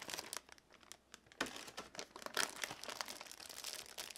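Plastic bags holding a model kit's sprues crinkling and crackling as they are handled, in irregular bursts, loudest about halfway through.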